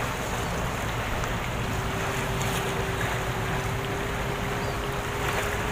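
Wind buffeting the microphone over sea water washing around a harbour pier, a steady noise with no distinct events. A faint, thin steady tone joins about a second and a half in.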